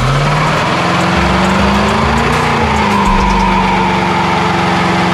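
Car engine revved up hard at the start and held at high revs with a loud rushing noise, its pitch peaking about two seconds in and then easing slightly.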